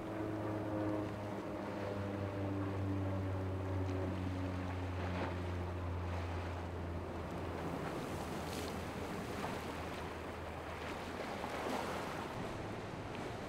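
Motorboat engines running, their pitch sinking slightly as the boat moves away and fades out over the first several seconds, leaving a steady hiss of wind and surf.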